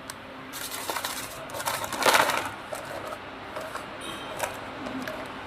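A gas-filled plastic film packing bag being handled and squeezed, its film crinkling and rustling, loudest about two seconds in. A faint steady hum runs underneath.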